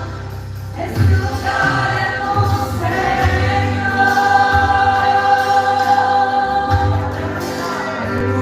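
A worship band playing live gospel music, with singers holding long notes over bass and accompaniment.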